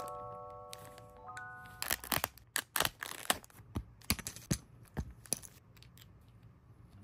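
Thin clear plastic bags crinkling and crackling as a capsule toy's tiny plastic miniatures are unwrapped and handled, with small clicks of the plastic pieces, from about two seconds in. A few chime-like music notes ring in the first second or two.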